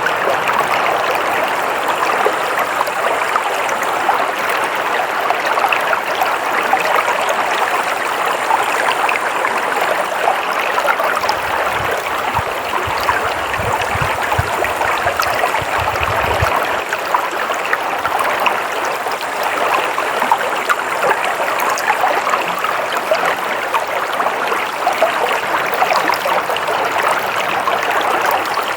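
Water flowing steadily in a stream, a constant rushing and splashing, with a brief low rumble about halfway through.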